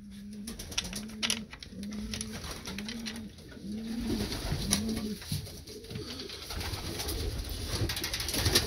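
Domestic pigeons cooing, a run of about six low, evenly spaced coos over the first five seconds. Scattered clicks and knocks sound throughout.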